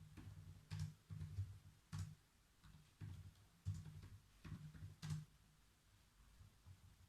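Faint typing on a computer keyboard: irregular keystrokes with soft low thuds, which die away about five seconds in.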